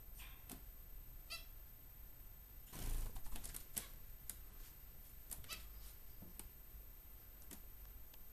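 Small finches giving a short chirp and scattered light clicks and ticks, with a brief rustle about three seconds in.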